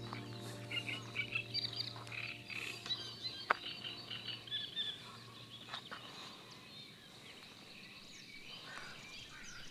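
Frogs croaking in a run of short, quick calls, which thin out after about five seconds.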